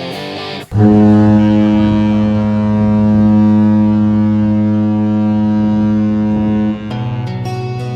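Ship's horn sounding one long, steady, deep blast of about six seconds, starting abruptly about a second in and stopping near the end.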